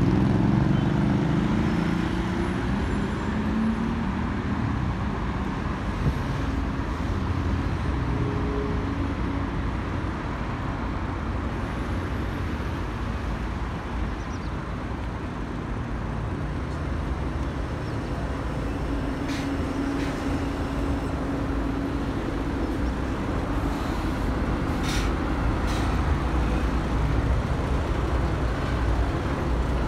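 City street traffic: a steady rumble of passing cars and a city bus engine humming, with a few short faint hisses in the second half.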